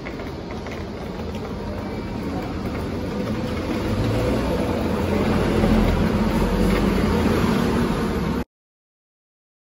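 Street traffic noise: a motor vehicle's engine running as it passes, swelling in the middle. The sound cuts off to silence about eight and a half seconds in.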